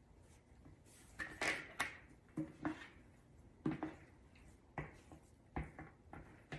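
A spatula scraping and knocking against the inside of a plastic bucket as sticky risen dough is worked out onto a floured board: an irregular string of short hollow knocks and scrapes.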